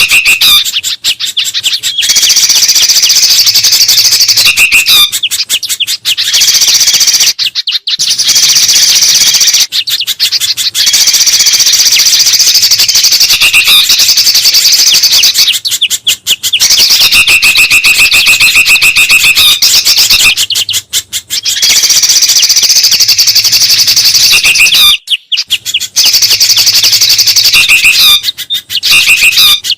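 Loud, dense chattering of mixed songbirds, the bulbuls and spiderhunter of a bird-lure recording, with short gaps every few seconds where the sound drops out.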